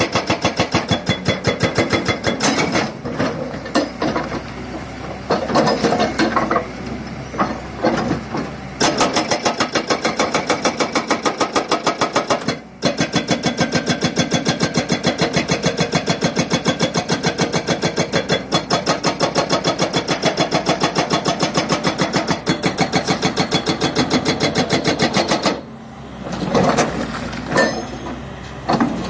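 FI-20 hydraulic rock breaker on an excavator hammering its chisel into rock: rapid, even blows, several a second, over the excavator's diesel engine. The blows falter or break off briefly a few times as the tool is repositioned.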